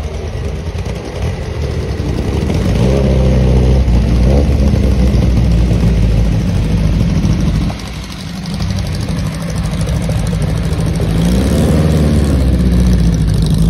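Porsche 550 Spyder's air-cooled four-cylinder racing engine rolling at low speed. It is revved up twice, about three seconds in and again near the end, with the pitch rising and settling back between them.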